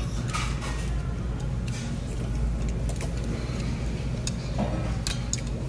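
Steady low hum of a restaurant dining room, with a few light clinks of chopsticks and a spoon against dishes at the table.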